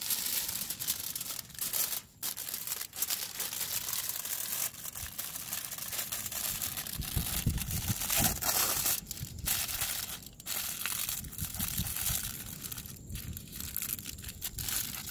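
Aluminium foil crinkling and crumpling as crabs are wrapped and squeezed in it by hand, with a sheet of foil torn off the roll.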